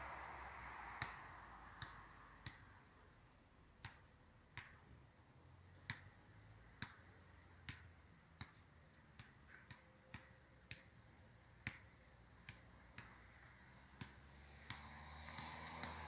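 Faint, sharp clicks at an irregular pace of about one or two a second, over a soft hiss that dies down after the first couple of seconds and comes back near the end.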